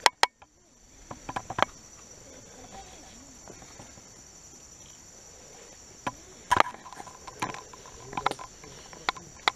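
Steady high chorus of insects in the meadow grass, typical of crickets or katydids. Scattered sharp clicks and knocks stand out over it, a pair at the very start, a few more about a second and a half in, and several in the last three seconds.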